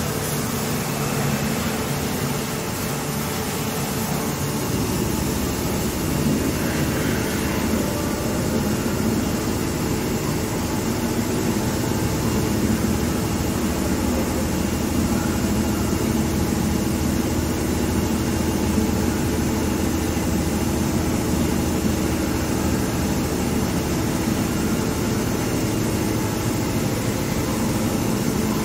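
A Haas EC-400 horizontal machining center running under flood coolant, heard through its closed enclosure: a steady hiss of coolant spray over the hum of the spindle and machine, which grows fuller about five seconds in.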